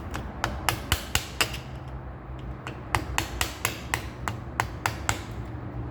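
Hammer tapping on the old steel lower bearing race of a 1976 Corvette steering column, walking the cut, loosened race down the shaft. About twenty quick, sharp taps with a short pause midway.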